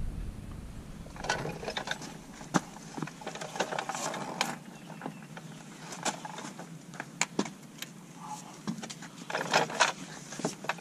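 Metal sockets and tools clinking and knocking in a tray of sockets as they are picked through, a string of irregular sharp clicks.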